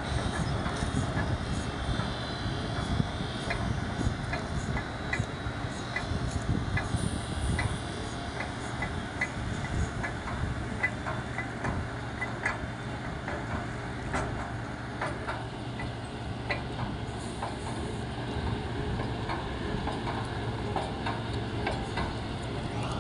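Water well drilling rig running while drilling, a steady engine and hydraulic drone with frequent sharp clicks and knocks over it.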